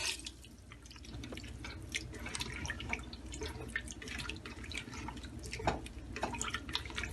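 Water dripping into a pressure cooker pot, heard as scattered faint drips and light clicks.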